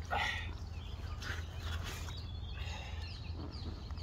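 Small birds chirping in the background, a run of short falling chirps in the second half, over a steady low rumble. There is a brief rustling noise at the very start.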